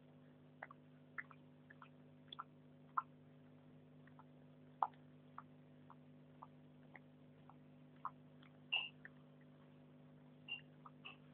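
Staffordshire bull terrier licking and nibbling another dog's coat: irregular wet clicks and smacks, one or two a second, uneven in strength.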